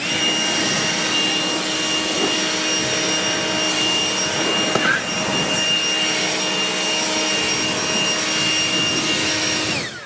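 Handheld dust blower running steadily, a rush of air over a constant high motor whine, blowing sawdust off freshly sawn boards on the sawmill; it shuts off just before the end.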